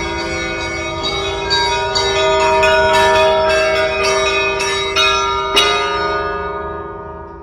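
Church bells ringing: a run of strikes on several bells of different pitch, with the last and loudest strike about five and a half seconds in. The bells then ring on and die away.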